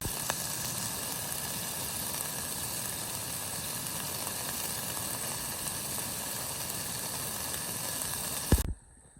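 Steak searing in a pan on a backpacking stove, a steady sizzle that cuts off suddenly near the end, just after a short thump.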